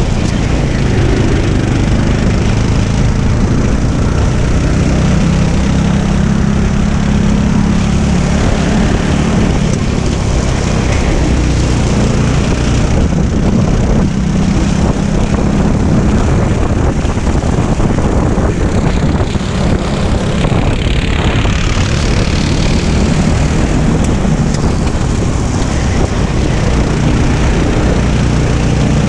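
Racing go-kart engine running hard on board the kart, its pitch rising and falling as the driver goes through the corners.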